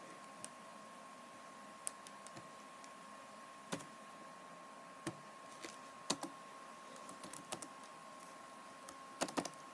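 Sparse keystrokes on a computer keyboard: single clicks about a second apart, then a quick little run of keys near the end. A faint steady hum is under them.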